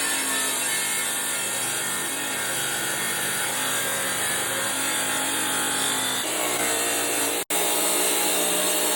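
A rock saw's blade cutting steadily through a Swazi agate: a continuous grinding hiss over a faint motor hum. The sound breaks off for an instant about seven and a half seconds in.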